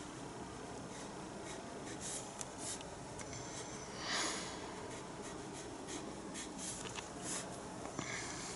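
Paintbrush working acrylic paint onto the painting surface: a series of short brush strokes, the longest and loudest about four seconds in.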